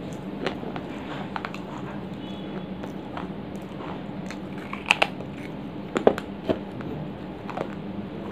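Dry clay lumps being bitten and crunched in the mouth: scattered sharp crunches, the loudest about five and six seconds in, over a steady low hum.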